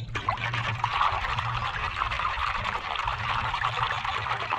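Water in a shallow basin sloshing and splashing without a break as a hand swishes and scrubs a small toy figurine in it.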